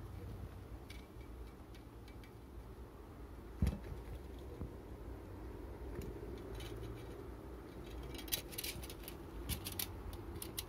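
Faint metallic clicks and clinks as a large twist drill trailing a long spiral steel chip is handled, with one thump a few seconds in and a quick run of clicks near the end, over a low steady hum.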